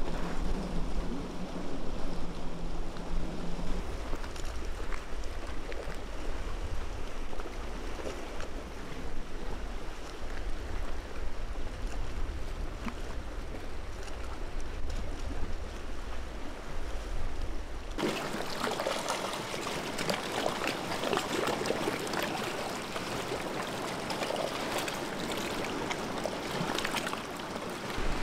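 Seashore ambience: a low steady rumble of sea and surf, then, after an abrupt cut about two-thirds of the way in, close-up sea water lapping and trickling among shore rocks.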